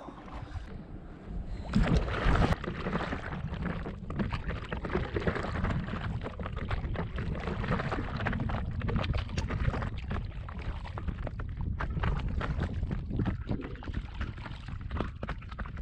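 Water splashing and lapping around an inflatable stand-up paddleboard as it is paddled, with irregular splashes over a steady low rumble. A louder splash comes about two seconds in.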